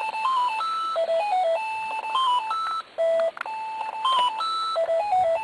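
An electronic device beeping out a simple tune: clear single notes stepping up and down in a short phrase that repeats about every three seconds, with a brief break near the middle.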